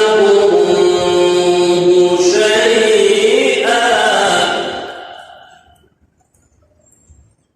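Solo male voice reciting the Quran in melodic tajweed style, drawing out long ornamented notes. The voice stops about four and a half seconds in and its echo fades away.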